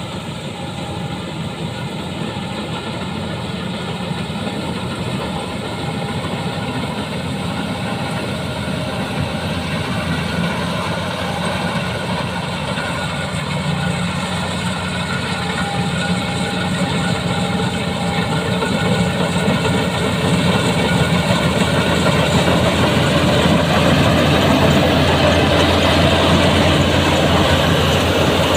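Combine harvester engine and machinery running steadily, slowly growing louder.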